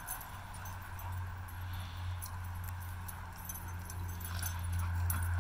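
Dogs wrestling on wood chips: light jingling and clicking of collar tags and scuffling of paws, over a steady low rumble.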